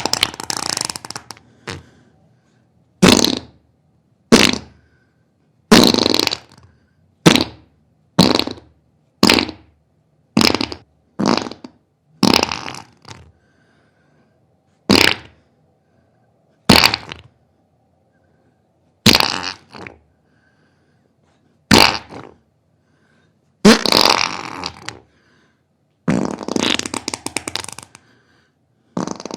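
A series of about sixteen separate farts, each a sudden short blast that dies away, some brief pops and some drawn out and spluttering, with silent gaps between them.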